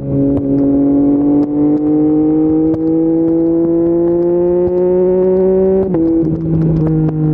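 Yamaha MT-09's three-cylinder engine through an Akrapovic full-system exhaust, pulling under throttle with its pitch rising slowly. About six seconds in it shifts up and the pitch drops sharply, then runs on at the lower note.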